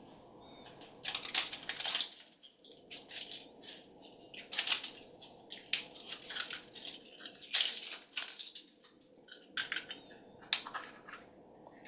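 Crinkling, rustling and tearing of a plastic blind-bag toy wrapper being opened by hand, in irregular bursts with short pauses.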